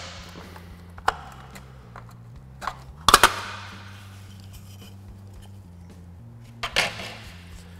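Hard plastic clicking and snapping as the grille's locking tabs are pried and bent with a flat-blade screwdriver and the chrome emblem is pushed out of the grille. There are a few light clicks, one sharp snap about three seconds in followed by a short rustle, and another snap near the end.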